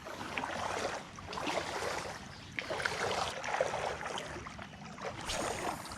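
Creek water sloshing and swishing as someone wades through it, the noise swelling and easing several times with the steps.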